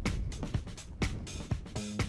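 Background music with a steady drum beat; a deep held bass note comes in near the end.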